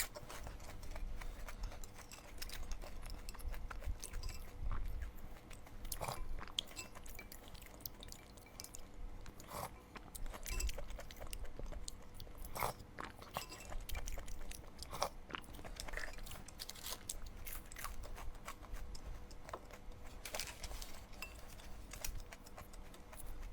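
A person chewing and biting food close to the microphone, with irregular wet smacks and crisp crunching clicks.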